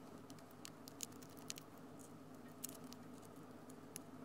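A few faint, scattered clicks from a small precision screwdriver turning a screw in a plastic drone body, over a low steady hum.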